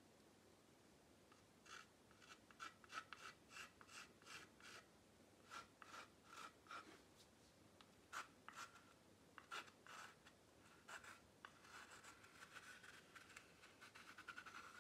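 Faint scraping of a metal palette knife spreading and pressing thick paint on a canvas, in a run of short separate strokes that turn into a longer, more continuous scrape near the end.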